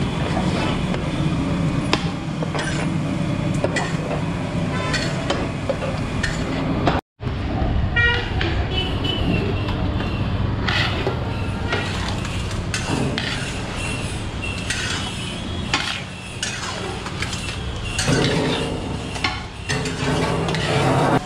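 Street traffic with horns honking, mixed with metal ladles and spatulas clanking and scraping on a large flat tawa. The sound cuts out for a moment about seven seconds in.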